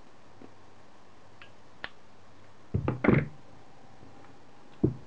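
Handling knocks on a wooden desk as pliers are put down and a laser pointer's metal tube is handled: a light tick about two seconds in, a quick cluster of louder knocks around three seconds, and one more knock near the end.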